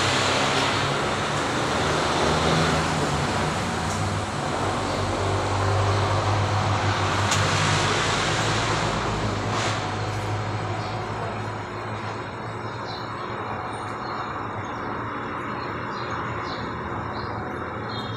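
Vertical turret milling machine running, its spindle motor humming steadily while a drill bit cuts into a metal plate. The cutting noise eases off about halfway through, with a few light ticks after.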